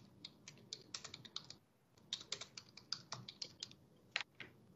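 Faint typing on a computer keyboard, an irregular run of light clicks with a short break about two seconds in.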